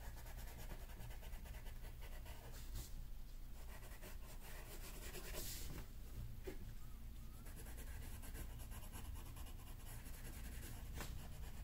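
Colored pencil scratching on paper in rapid, continuous strokes, pressed hard to shade darker values into a drawing.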